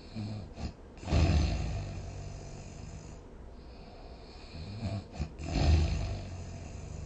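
A person snoring: two snores about four and a half seconds apart, each a short, softer intake followed by a louder, low snore that fades over about a second.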